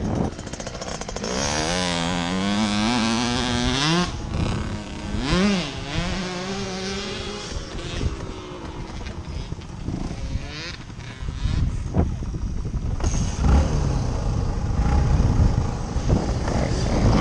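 Yamaha TT-R250 four-stroke single-cylinder dirt-bike engine revving up under throttle for a few seconds, cut off abruptly about four seconds in, then briefly blipped and let drop. A low noisy rumble fills the last few seconds.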